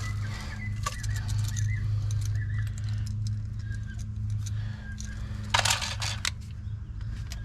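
Small metal parts and hand tools clicking and rattling as electrical wiring is handled, with a denser burst of rattling about five and a half seconds in, over a steady low hum.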